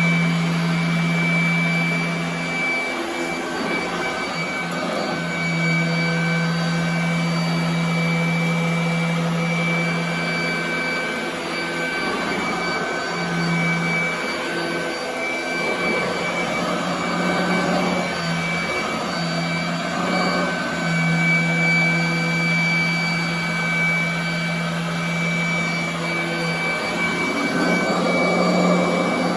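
Royal commercial vacuum cleaner running on carpet: a steady motor whine with a high tone. Its low hum breaks off and comes back several times as the load on the machine changes.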